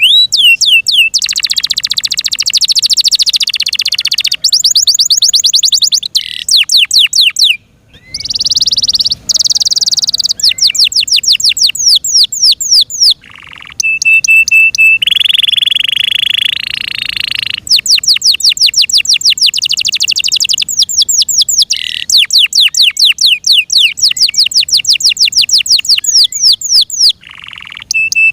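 F1 Yorkshire-cross canary singing: long runs of rapid repeated notes and fast trills, mixed with steady whistled tones and buzzy passages, with a few short breaks between phrases.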